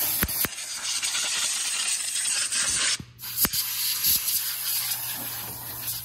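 Compressed-air blow gun hissing as it blows debris off the engine around the valve cover before the cover comes off. Two long blasts with a short break about three seconds in, the second easing off near the end, with a few sharp clicks.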